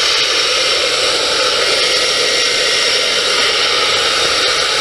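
Truck engine running steadily just after starting, heard as a loud, even rushing noise while the truck is backed up a short way.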